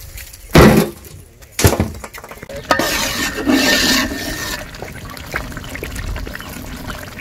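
Two loud metal clanks, about half a second and a second and a half in, as the coal-topped aluminium lid of a large cooking pot is handled, then a ladle stirring and sloshing thin onion-and-oil gravy in the pot, with light clinks of the ladle against the metal.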